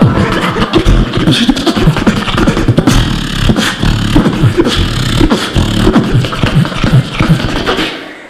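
A beatboxer performs live into a handheld microphone over a PA: a fast, dense run of percussive mouth sounds over a deep bass, easing off just before the end.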